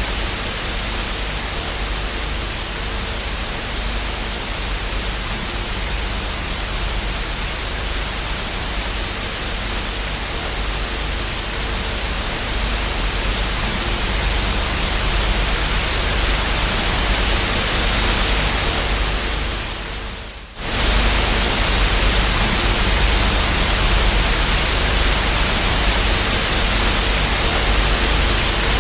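Television static hiss: a steady white-noise rush with a faint low hum under it. About twenty seconds in it fades away sharply for a moment, then cuts straight back in a little louder.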